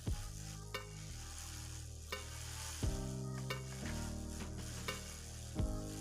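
Background music of sustained chords and struck notes, the bass changing every second or two, over a steady hiss.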